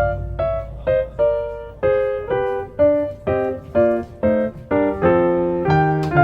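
Background music: a slow piano or electric-piano melody of single struck notes, about two to three a second, each fading away.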